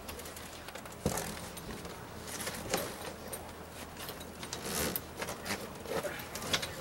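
Zipper of a clear vinyl boat-enclosure window panel being pulled along the frame in several short, rasping pulls, with the stiff vinyl panel rustling as it is fitted back into place.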